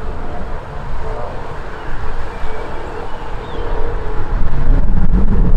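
Steady jet noise from a climbing CRJ-900 regional jet's two rear-mounted turbofans, under heavy wind buffeting on the microphone. The wind rumble swells louder near the end.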